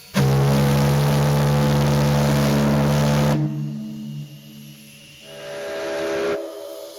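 The SS Normandie's three-bell chime steam whistle sounding a loud, steady chord with the hiss of steam. It starts abruptly, cuts off after about three seconds, then a second, quieter sounding swells up and dies away near the end.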